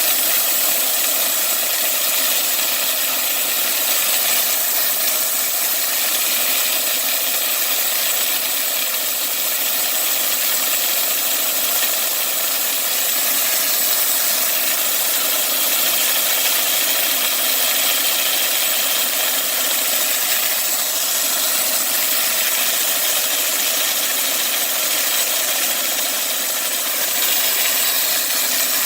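Homemade bandsaw mill running steadily as it saws through a black walnut log, with a constant engine drone and blade noise.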